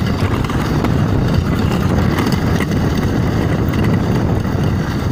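A vehicle driving, a steady loud low rumble of engine and road noise without a clear engine note.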